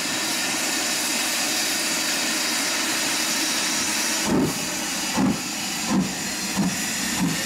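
Ivatt Class 2MT 2-6-2T steam tank engine hissing steam as it stands. A little over four seconds in, it starts away, and its exhaust chuffs begin slowly and quicken over about five beats.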